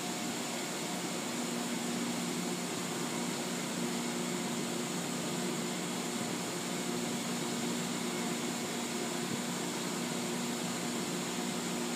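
Steady drone of oil platform machinery: a constant low hum with a few fixed tones over an even hiss, unchanging throughout.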